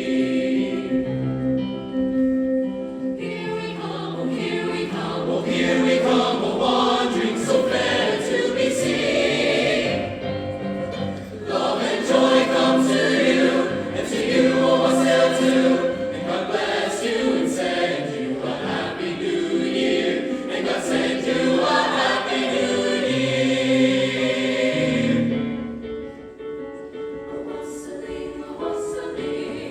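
A choir singing sustained, changing chords, growing fuller after the opening seconds and dropping to a softer passage near the end.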